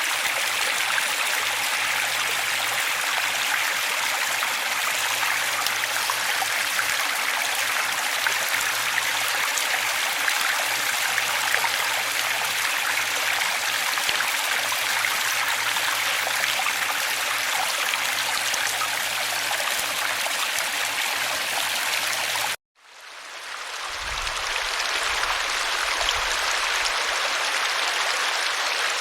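Steady rushing of running water, a stream's even hiss. About three-quarters of the way through it cuts out suddenly for an instant, then fades back in, with a little low rumble as it returns.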